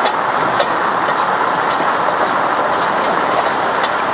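Suzuki Vitara's blown bearings grinding as it drives, an awful, steady harsh noise with irregular clicks on top: the bearings have failed.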